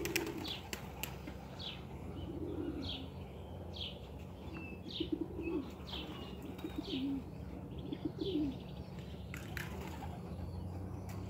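Racing pigeons cooing, low phrases repeating every couple of seconds, over a steady low hum. Short high chirps come about once a second, and a few sharp wing claps come in at the start and again near the end.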